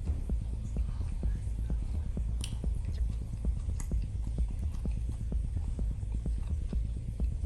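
Close-miked chewing of a big grinder sandwich: a steady run of rhythmic, heavy chews, several a second, with a couple of sharper crisp clicks about two and a half and four seconds in.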